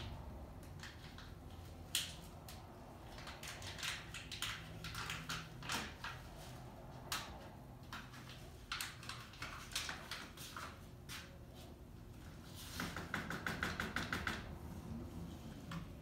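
Household clatter: scattered knocks and clicks of objects being handled in a room over a low steady rumble. About two-thirds of the way through comes a quick run of rattling, ringing clicks.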